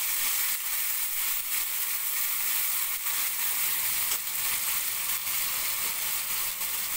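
Onion, ginger, garlic and green chilli paste sizzling steadily in hot oil in a kadai, freshly added, with a few faint clicks through the hiss.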